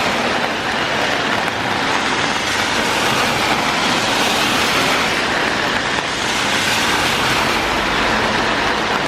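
Heavy rain falling, with cars passing on the wet road, the noise swelling and easing.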